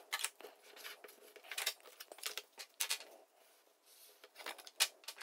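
A sheet of card being folded in half and its crease worked: scattered crisp paper rustles and short scraping strokes, faint and irregular.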